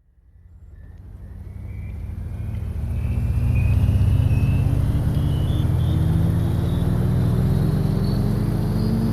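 A motor engine running, fading in over the first few seconds and then steady, its pitch rising slowly and evenly as it speeds up.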